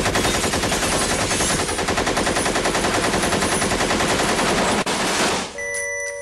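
Sustained automatic machine-gun fire, a rapid even stream of shots, used as a sound effect. The firing stops about five and a half seconds in, and steady electronic tones come in, gliding slightly downward.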